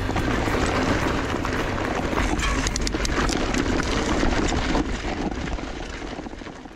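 Mountain bike riding over a rocky gravel track: a crunching, clattering ride noise of tyres, stones and the rattling bike, with wind rumbling on the microphone. It fades away over the last two seconds.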